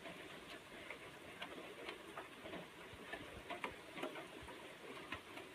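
Steady rain falling, with irregular drops tapping sharply close by, several a second.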